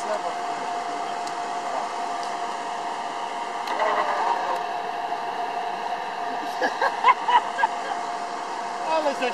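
Electric winch on a bogged Jeep Cherokee XJ's front bumper running steadily under load, a continuous motor whine as it hauls the cable anchored to another vehicle.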